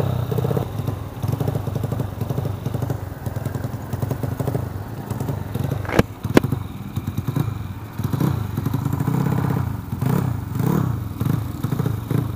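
Modified Vespa Sprint two-stroke scooter engine, fitted with a 68 mm big-bore piston and carburettor, running hard under acceleration. Its pitch climbs and drops over and over. There is a sharp click about six seconds in.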